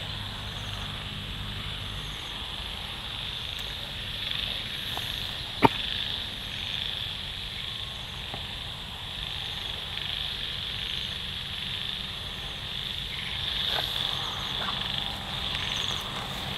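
Night-time chorus of insects and frogs: a steady high-pitched insect drone with scattered short frog calls. A single sharp click sounds about five and a half seconds in.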